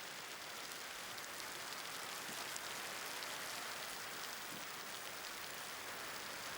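Steady rain falling, an even hiss with faint scattered drops.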